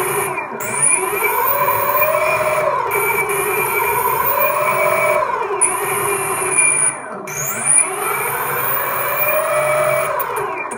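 Electric longboard's brushless motor, driven by a VESC speed controller, spinning up and slowing down. Its electric whine rises and falls in pitch several times, with a high whistle sweeping upward each time it speeds up.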